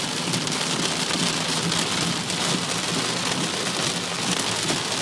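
Heavy rain pelting down steadily, a dense even patter.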